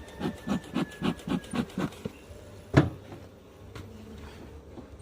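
Rhythmic rubbing or scraping strokes, about three a second, that stop about two seconds in, followed by a single sharp knock, then only faint background noise.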